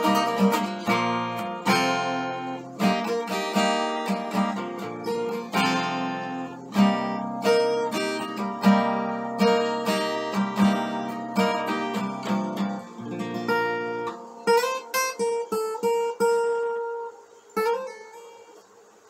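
Acoustic guitar with a capo, played solo with picked and strummed chords over ringing bass notes. About two-thirds of the way through the bass drops out and a few single notes ring, then the playing dies away near the end.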